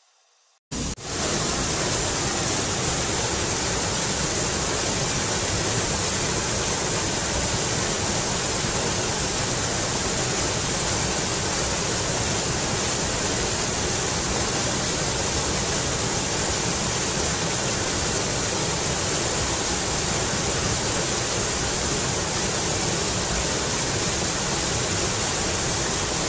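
Waterfall rushing steadily, cutting in abruptly about a second in.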